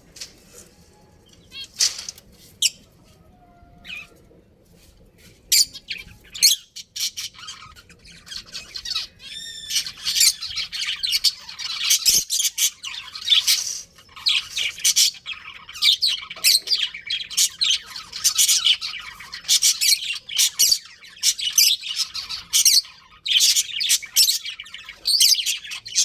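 Budgerigars chirping and chattering: scattered chirps at first, then continuous busy chirping from about ten seconds in.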